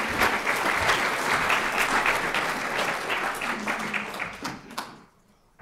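Audience applauding, the clapping thinning out and stopping about five seconds in.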